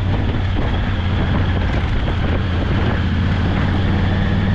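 Steady low drone of a running vehicle, a constant hum under an even rushing noise.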